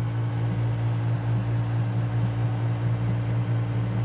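Steady low mechanical hum with a light hiss, unchanging throughout.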